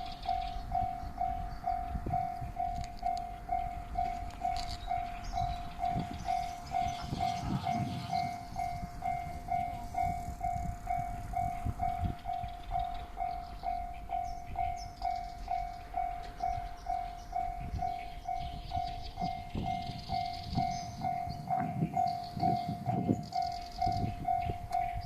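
Level-crossing warning bell ringing steadily at about two dings a second while a Kiha 40 and Kiha 47 diesel railcar train passes over the crossing. Under the bell, a low rumble and rapid clatter of the wheels swell twice.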